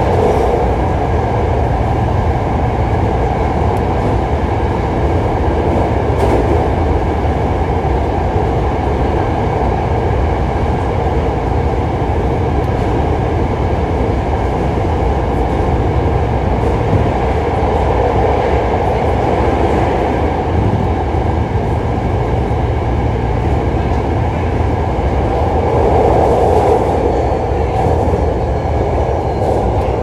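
Hankyu 1300 series electric train running steadily: a continuous rumble of wheels on rail, with the faint steady whine of its Toyo IGBT traction inverter and motors.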